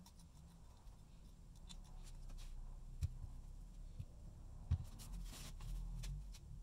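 Light workshop handling sounds of metal saw parts and tools as a Skilsaw 77's worm-drive housing is dismantled: two sharp knocks about three and four and a half seconds in, a few lighter clicks, and a brief scrape after them.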